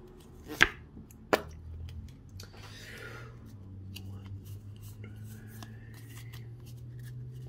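A pack of Pokémon trading cards handled in the hands. Two sharp snaps come in the first second and a half, followed by soft sliding and light ticks as the cards are moved back to front and fanned out.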